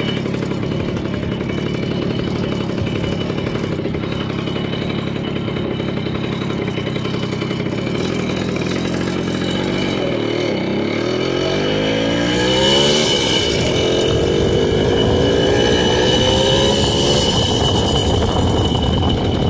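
Jawa moped's small two-stroke engine running under way, with its exhaust dented. Its pitch rises about ten seconds in as it accelerates, and rises again a few seconds later.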